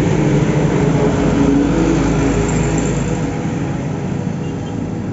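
Loaded dump truck's engine running as it passes close by, fading as it moves off over the last two seconds or so.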